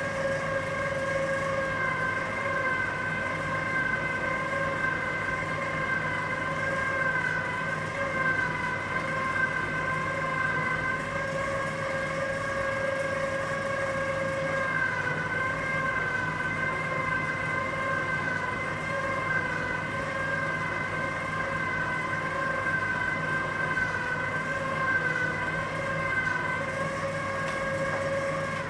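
Electric pasta machine's motor running with a steady high whine while pasta dough is rolled through its steel rollers, the pitch dipping slightly now and then; it stops suddenly at the end.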